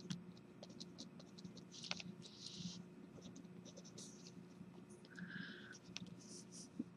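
Pen writing on paper: faint scratching strokes with small scattered clicks, over a faint steady low hum.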